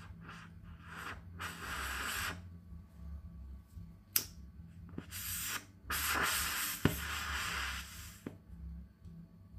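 A disposable lighter held to a carbide lamp's burner, struck several times to ignite the acetylene: sharp clicks and scraping strikes, with hissing stretches of about a second in between.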